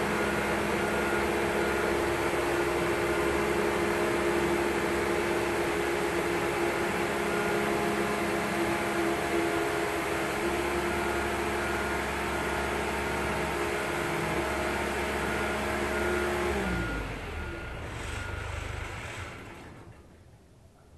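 Heavy machinery running with a steady, multi-tone hum, which winds down with a slight drop in pitch and stops about 17 seconds in, leaving a low rumble that fades out over the next few seconds.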